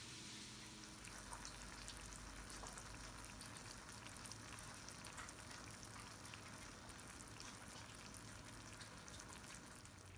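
Ground beef and onions sizzling faintly in a cast-iron skillet, a steady crackle of small pops that sets in about a second in.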